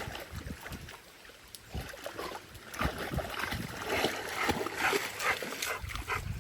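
Water splashing and sloshing in uneven bursts as a dog paddles in a lake, busiest in the second half.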